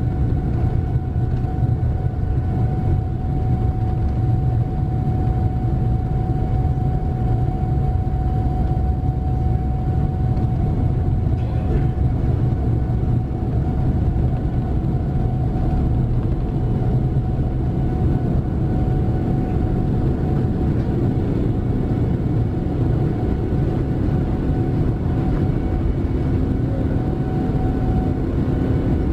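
Boeing 787-9's Rolls-Royce Trent 1000 jet engines at takeoff thrust, heard from inside the cabin: a steady deep roar and rumble with a constant whining tone above it, through the takeoff roll and into the climb.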